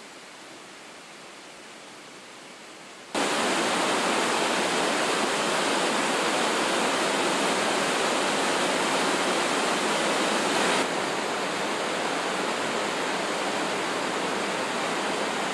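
Steady rush of a mountain stream cascading through a rocky gorge. It jumps suddenly much louder about three seconds in and drops a little about eleven seconds in.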